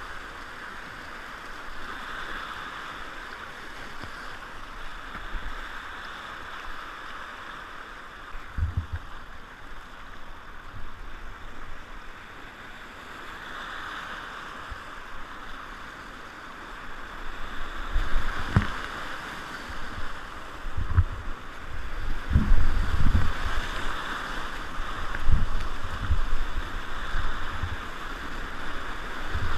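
Whitewater rapids rushing steadily around a kayak. About halfway through it gets louder, with irregular low thumps and splashes as the boat runs the rapid.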